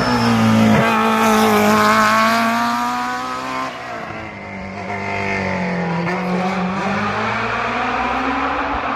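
Rally car engine at high revs on a tarmac stage, loudest over the first three seconds. Its note dips about four seconds in, then climbs again.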